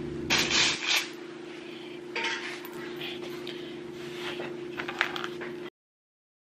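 Hands pressing, gathering and patting soft cookie dough on a cutting board: bursts of rustling and soft pats, with a few light clicks, over a steady low hum. The sound cuts off suddenly near the end.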